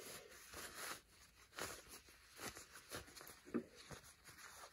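Faint, irregular rustling and rubbing of fabric as a sewn two-layer pleated face mask is turned right side out by hand.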